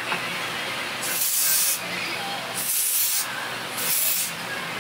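Three short hissing bursts from a spray bottle, about a second and a half apart, as spray is applied to a synthetic wig.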